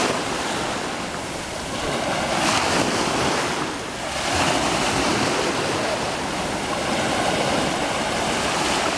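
Small waves washing up over sand at the water's edge and drawing back: a steady rush of surf that swells about two seconds in, dips briefly near four seconds, and swells again.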